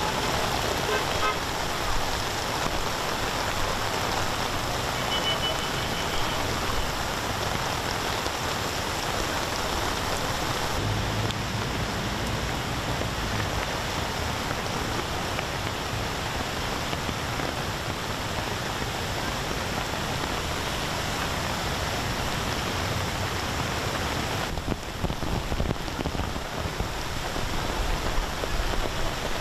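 Steady rushing noise of heavy monsoon rain and fast-flowing floodwater. A few short car-horn toots sound in the first several seconds.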